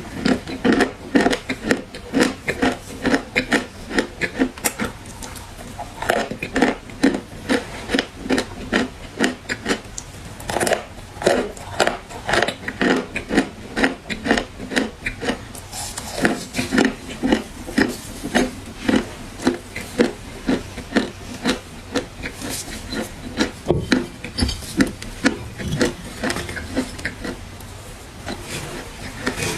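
Crunchy black clay being chewed close to the microphone: a steady run of sharp, dry crunches, several a second.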